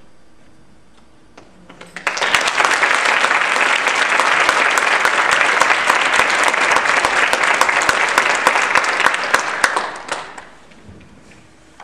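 Audience applauding, a dense crowd of clapping that starts abruptly about two seconds in, holds steady, and dies away about eight seconds later.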